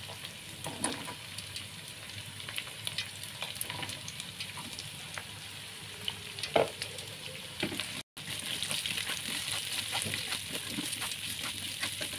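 Cauliflower, carrot and chicken sizzling in a frying pan while a spatula stirs them, scraping and knocking against the pan. The sound cuts out for a moment about eight seconds in, and after that the sizzle is louder.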